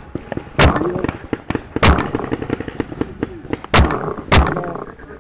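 Paintball marker firing: four loud, sharp shots at uneven intervals, with fainter clicks and pops between them.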